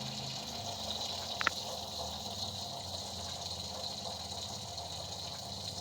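Water running steadily, filling a bath, with a single small click about one and a half seconds in.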